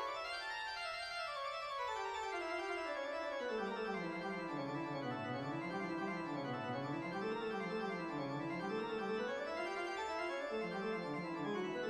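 Keyboard music accompaniment: a run of notes descends into the low register, then rolling arpeggios rise and fall, climbing again near the end.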